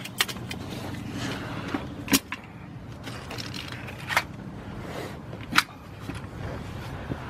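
A person shifting about under a jacked-up car on cardboard: shuffling and scraping, with four sharp clicks or knocks spread through it, over a low steady hum.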